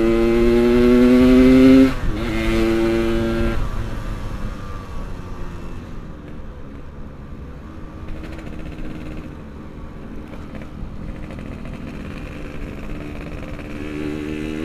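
Yamaha RX-King two-stroke single-cylinder motorcycle engine under way: it pulls up through the revs for about two seconds, drops sharply as if at a gear change, holds briefly, then eases off to a lower, quieter run. The revs start climbing again near the end.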